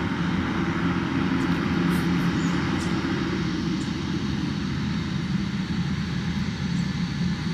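Beechcraft King Air B200's twin Pratt & Whitney PT6A turboprop engines running steadily at low taxi power as the aircraft turns to line up on the runway, an even propeller and turbine noise with no rise in power.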